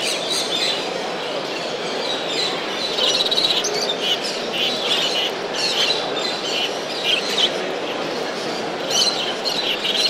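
Many caged show birds chirping and calling in quick overlapping clusters, loudest about three seconds in, over a steady din of the crowded hall.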